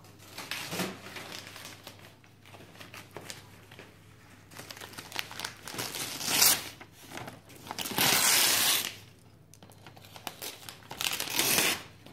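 Packaging being torn open and crumpled in several rustling bursts, the longest about a second each.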